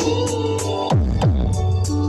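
Electronic dance music with a heavy bass line, held synth notes and deep kick drums that drop in pitch.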